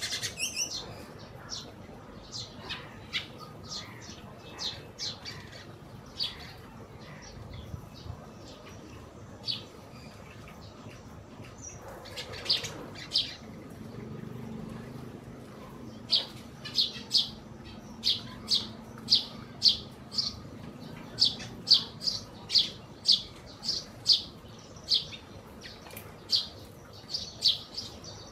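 Eurasian tree sparrows chirping: short sharp chirps scattered at first, then a run of chirps at nearly two a second through the second half.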